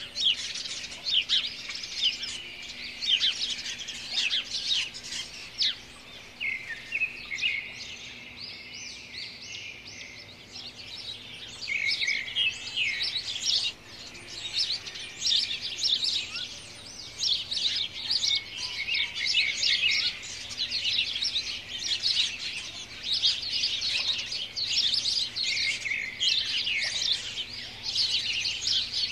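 A dense chorus of many birds chirping without a break, the calls thinning a little between about six and eleven seconds in.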